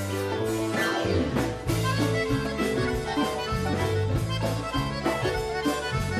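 Russian folk instrumental ensemble playing, with an accordion-type instrument (bayan or garmon) carrying held notes over a bass line and a steady rhythmic pulse of sharply attacked notes.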